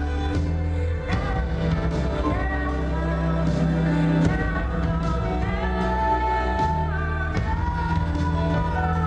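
Recorded music with a sung melody over a sustained, steady bass, played for a stage dance number.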